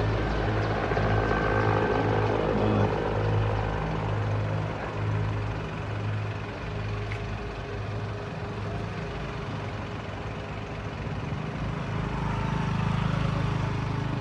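Military helicopter flying overhead, its rotor beating in a low, even pulse that fades through the middle and grows louder again near the end.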